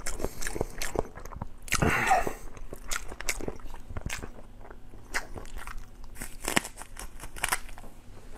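Close-miked eating: wet chewing of braised pig snout, with sharp crunches of biting into a raw scallion stalk.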